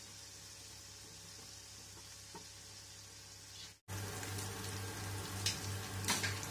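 Sambal paste of chili and tomato frying in oil in a wok, a steady sizzle. After a brief break about four seconds in it is louder, with a couple of sharp clicks near the end.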